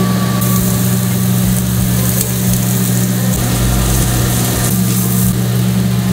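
Steady, loud mechanical drone of running commercial kitchen equipment, a low hum with noise over it. A high hiss comes in just after the start and stops about a second before the end.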